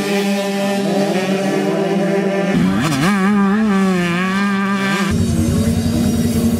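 Motocross dirt bike engines running and revving, a buzzing note that swoops up and down with the throttle. The sound changes abruptly about two and a half seconds in and again about five seconds in.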